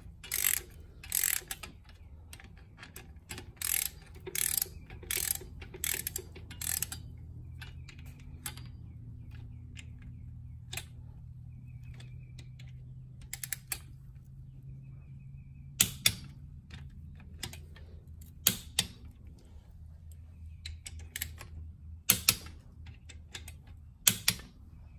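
Socket ratchet clicking in quick runs as the connecting-rod cap bolts of a Yanmar 3JH3E marine diesel are run down. In the second half come four single sharp clicks a few seconds apart: a torque wrench clicking off at its 5.5 kg·m setting on the rod bolts.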